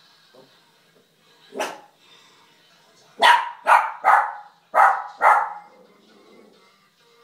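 West Highland white terrier barking at the television: a single bark, then about a second and a half later a quick run of five barks in about two seconds.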